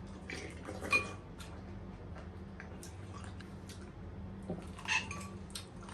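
Eating sounds: scattered small clicks and mouth noises from chewing, with two louder brief sounds about a second in and near the end, over a steady low hum.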